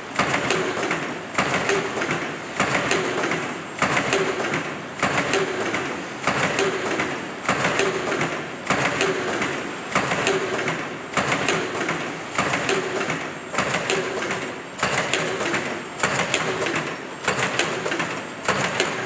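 Fully automatic flat face mask production machine running: a busy mechanical clatter that rises and falls in a regular cycle about once a second, each cycle with a short repeated note.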